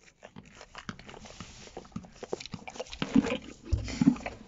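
Close-up sounds of a horse: scattered clicks and rustling, with two short low-pitched sounds a little after three seconds and at about four seconds.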